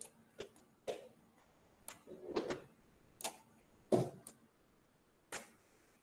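Faint, irregular small clicks and knocks, about eight of them spaced unevenly, against an otherwise quiet line.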